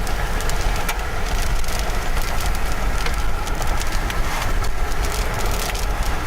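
Steady roar of wind and road noise from a vehicle driving through a storm, with many sharp ticks of rain striking it.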